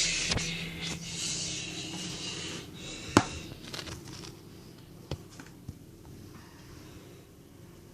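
Inside a moving lift car: a steady low hum, with a hiss for the first three seconds or so. A sharp click about three seconds in and two lighter clicks a couple of seconds later.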